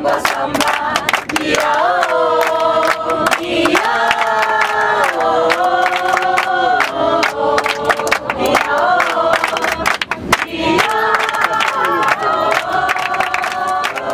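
A group of people singing a tune together in long held notes, with hands clapping along.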